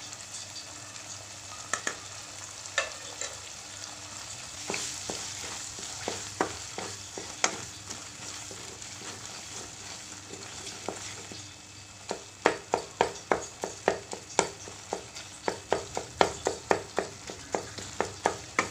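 Beef brain frying in oil in a coated wok, with a steady sizzle and a wooden spoon scraping and knocking against the pan as it is stirred. From about two-thirds of the way through, the spoon strokes come quickly and regularly, about three a second.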